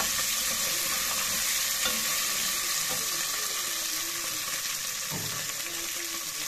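Beef sizzling steadily as it fries in an aluminium pot, with a wooden spoon stirring and scraping through it now and then.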